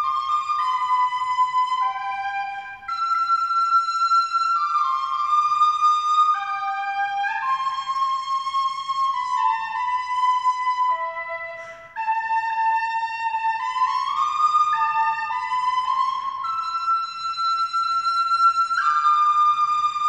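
Music: a slow melody of long held notes on a single high wind-like instrument, with short pauses between phrases about three and twelve seconds in.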